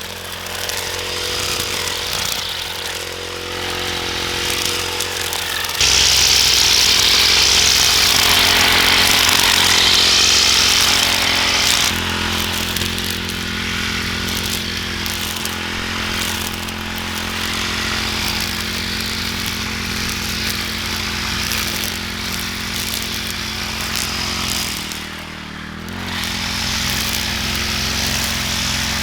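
A small engine running steadily. It gets louder with a hissing edge from about six to twelve seconds in, then settles back, with a short dip near the end.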